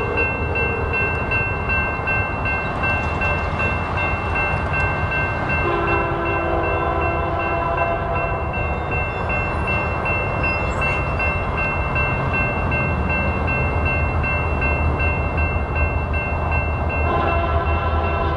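Level-crossing warning bell ringing as an approaching Union Pacific freight train, led by an EMD SD70M locomotive, sounds its multi-note air horn for the crossing. The horn gives one long blast about six seconds in and starts another near the end.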